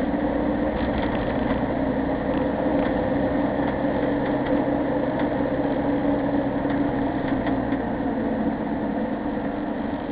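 Engine and road noise of a vehicle driving at low speed, heard from inside the cabin: a steady hum with a few light, irregular clicks.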